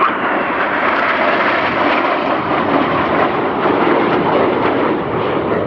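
Steady jet noise from a formation of Northrop F-5E Tiger II fighters flying overhead, the sound of their turbojet engines.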